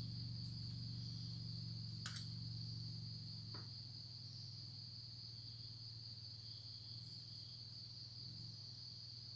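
Continuous high-pitched cricket trill over a low steady hum, with a soft click about two seconds in.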